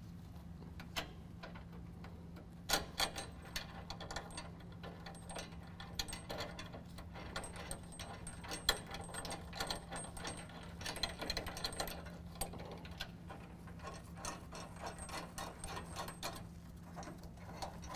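Irregular light metallic clicks and rattles of a washer, lock washer and nut being fitted by hand onto a bolt through a steel bumper bracket and truck frame rail, over a faint steady hum.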